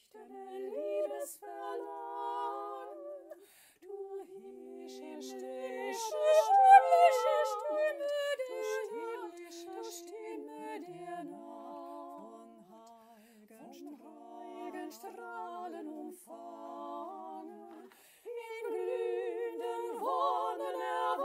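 Multitracked a cappella singing: one woman's voice layered into several harmony parts with vibrato, in phrases with short breaks between them. It is a part-song arrangement with the alto line left out.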